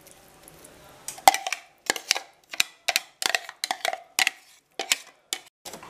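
Metal spoon spreading green olive tapenade over a pizza base: a string of short, irregular clicks and scrapes starting about a second in, a few with a faint metallic ring.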